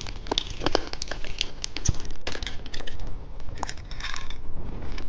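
Plastic candy packaging crinkling and crackling as it is handled, in irregular rustles and small clicks.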